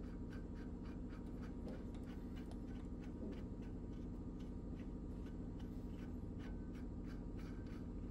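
Steel hex nut being spun by hand along freshly cut 1-inch, 14-thread threads on a steel shaft, trial-fitting the threads, with faint scratchy ticks about three a second. A steady low machinery hum runs underneath.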